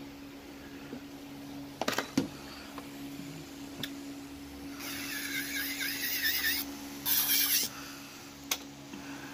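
Electric nail drill running with a steady hum. Its bit grinds on acrylic nail with a wavering rasp about five seconds in, followed by a short high hiss. A few sharp clicks come in between.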